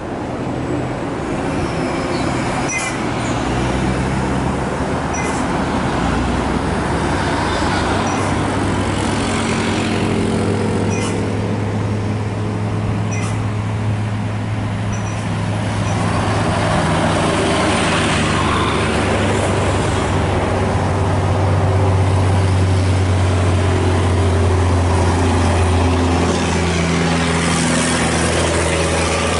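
Tour coach diesel engines running through a bend, a steady drone. It grows louder about halfway through and is loudest near the end as a coach passes close by.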